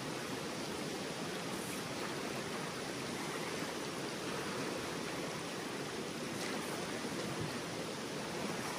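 A fast, shallow river rushing steadily over rocks and riffles.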